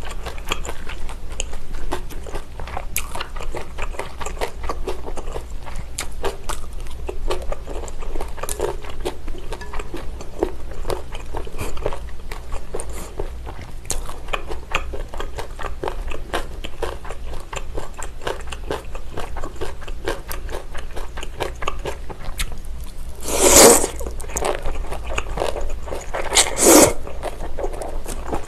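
Close-miked chewing of cold abalone mulhoe, a run of small wet crunches and clicks as the abalone and noodles are bitten. Near the end, two louder slurps as noodles are sucked in, about three seconds apart.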